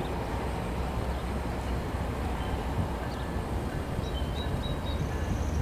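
Double-stack container freight train rolling slowly away, a low steady rumble, with a few faint bird chirps near the end.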